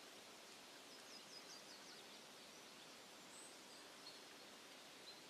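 Near silence: faint forest ambience, with a few faint, high bird chirps in the middle.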